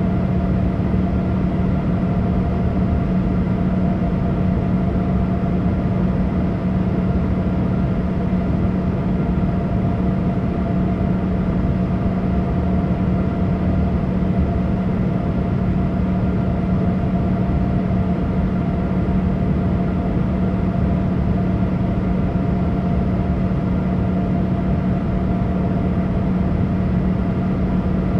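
Steady cabin noise inside a Boeing 787 airliner: a constant low rumble with steady humming tones, unchanging throughout.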